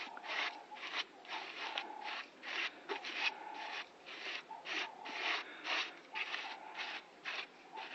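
Repeated rubbing strokes of a hand tool on a surface, about two a second, each a short scratchy swish, with a faint steady tone sounding between strokes.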